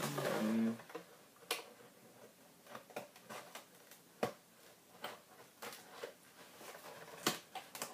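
Scattered light clicks and taps of packaging being handled as tape is worked free from a cardboard target.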